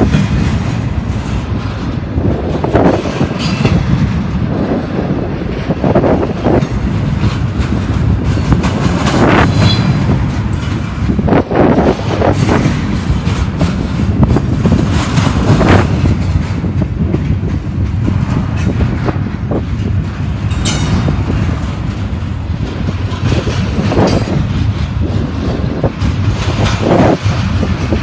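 Double-stack container freight train's well cars rolling past close by: a steady heavy rumble of steel wheels on rail, with repeated clatter as each set of wheel trucks goes by.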